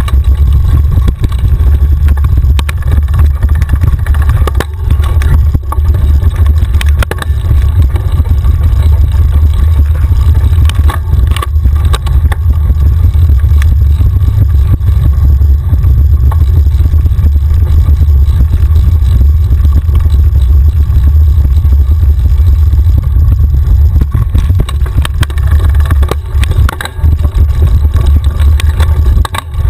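Steady low rumble of wind buffeting a mountain bike's mounted camera and tyres running over a dirt singletrack at speed, with scattered clicks and knocks as the bike rattles over stones and roots.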